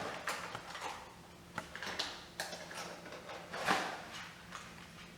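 Small plastic toy pieces being handled, with a scatter of light clicks and taps, the loudest about two-thirds of the way through.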